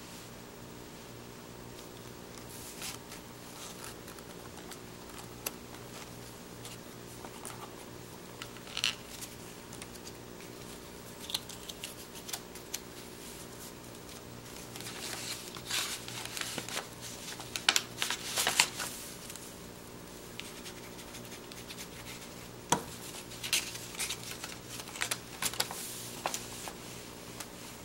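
Stiff printed paper being handled: a die-cut pop-up card folded flat against its rubber band and then a paper envelope handled, giving scattered scrapes, rustles and small clicks, busiest in the middle and again near the end. A faint steady hum lies underneath.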